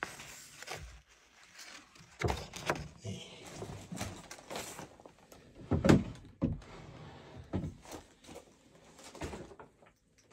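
Irregular knocks and thuds in a room, the loudest about six seconds in.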